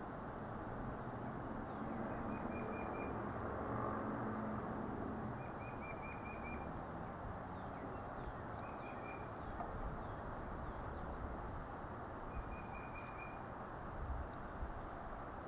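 Wild birds calling: a short rapid trill of repeated notes four times, with a few faint thin chirps between. Steady outdoor background noise under it, and a couple of soft bumps near the end.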